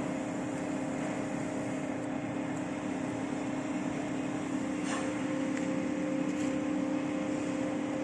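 A steady mechanical hum holding one low fixed tone over a constant hiss, with a faint click about five seconds in.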